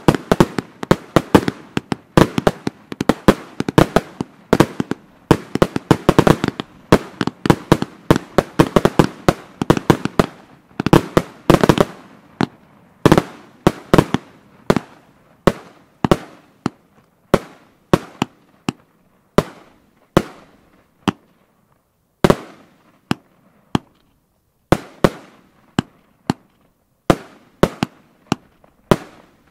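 Aerial fireworks bursting in the sky: a dense, rapid run of sharp bangs and crackles that thins out after about twelve seconds to single bangs roughly once a second. A short lull comes past the middle before a few more bursts.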